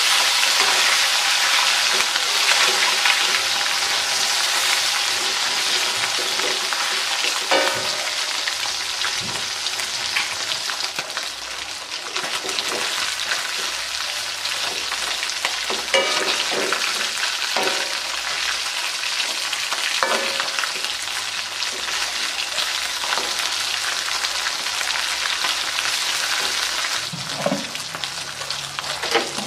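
Slices of spiced beef (empal) frying in oil in an aluminium wok: a steady sizzle. A metal spatula scrapes and knocks against the pan a few times as the meat is turned.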